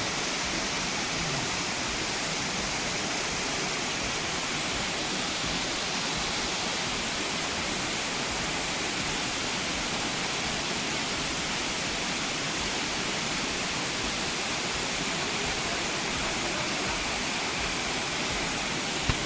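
Waterfall rushing in a steady, even wash of water noise. A brief bump sounds near the end.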